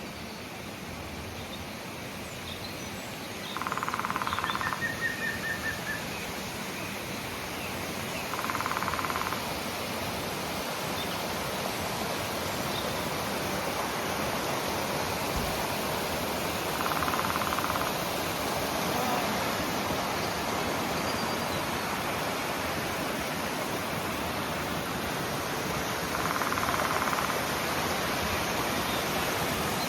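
A waterfall rushing steadily, with four brief louder swells of a second or so. A short run of bird chirps comes about five seconds in.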